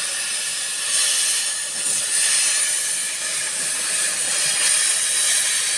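Steady hiss of welding on the cracked steel of a wheel loader bucket.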